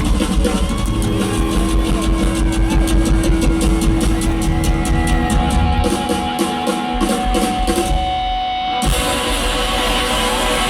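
Loud live rock band, with drum kit and electric guitars, playing a run of rapid, evenly spaced drum hits. About nine seconds in it changes suddenly to a sustained wash of sound.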